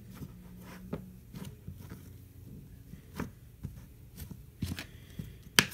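Hands handling slime and small plastic slime containers: scattered soft clicks, crackles and rustles, with a couple of sharper clicks near the end.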